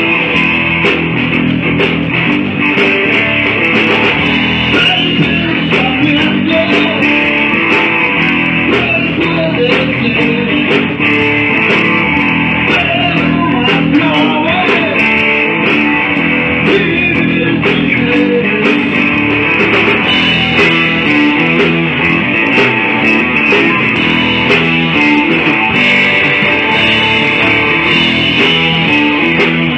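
Blues-rock band playing: electric guitar over bass guitar and drums.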